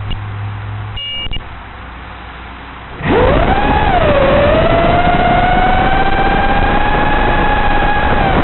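FPV racing quadcopter's brushless motors (Racerstar 2204 2300KV) and three-blade 5-inch props spinning up suddenly about three seconds in, then running as a steady whine that dips briefly in pitch and settles. Before that there is only a low electrical hum and a short two-tone beep.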